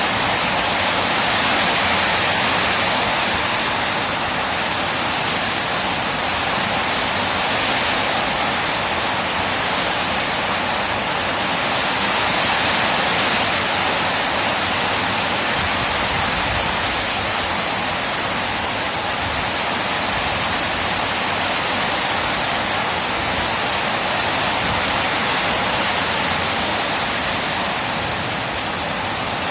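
Rainstorm: heavy rain falling in a steady, even hiss with no lulls.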